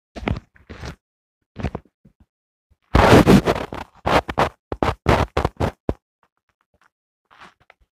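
Close knocks, taps and scraping handling noise: a few knocks early, a louder dense rubbing clatter about three seconds in, then a quick run of sharp taps, about four or five a second, stopping about six seconds in.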